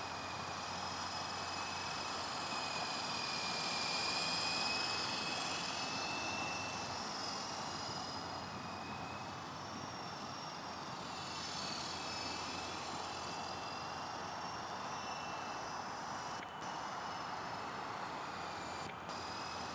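Lama helicopter in flight: steady rushing turbine and rotor noise with a high turbine whine that drifts slightly in pitch, briefly dipping twice near the end.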